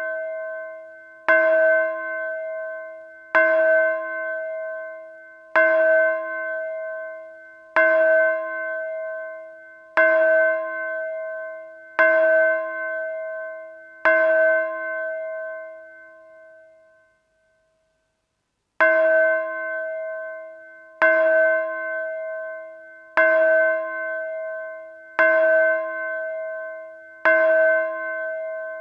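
A single metal bell tolling: struck about once every two seconds, each stroke ringing on with the same few clear tones and fading before the next. After seven strokes it stops, and about two seconds later the tolling starts again at the same pace.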